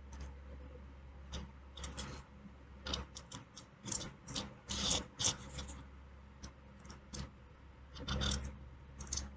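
Felt-tip marker scratching and rubbing in short, irregular strokes on a porous white block as dots are drawn, with brief pauses between clusters of strokes. The marker is not writing properly.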